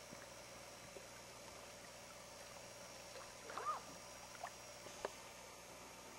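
Very quiet outdoor stillness: a faint steady hiss, with one brief faint rising-and-falling call a little past halfway and a couple of soft clicks.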